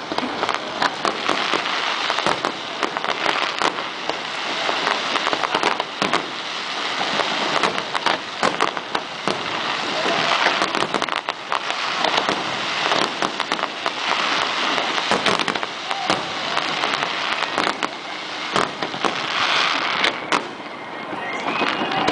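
Aerial fireworks display: a dense, continuous crackle with frequent sharp bangs all through.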